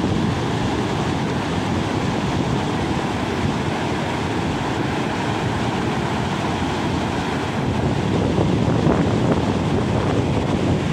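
Muddy floodwater rushing and churning through rapids, a loud, steady rushing noise that swells slightly near the end.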